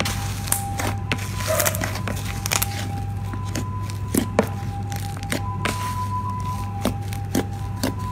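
Fluffy slime being squeezed and kneaded by hand, giving irregular sharp pops and clicks over a steady low hum.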